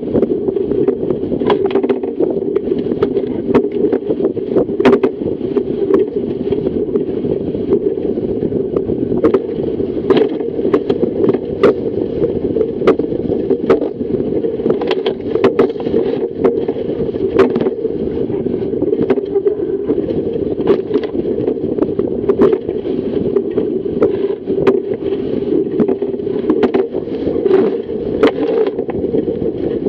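Fireball racing dinghy's hull rushing through choppy water under sail, a steady dull rush of water and wind, with frequent sharp slaps of chop and spray against the hull, about one or two a second.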